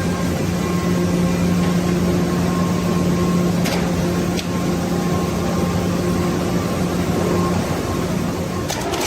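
A machine or motor running with a steady low hum over a rushing noise, with two light clicks near the middle; the hum drops away near the end.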